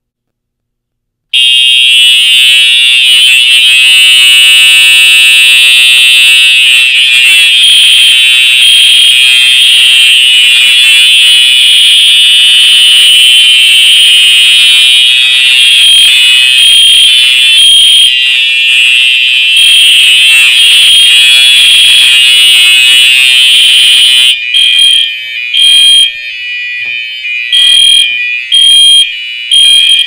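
Fire alarm horns on a demonstration board sounding a loud, continuous alarm. They start suddenly about a second in, with the system in alarm after a smoke detector was tested with canned smoke and a pull station was pulled. About six seconds before the end the sound breaks into short, irregular blasts.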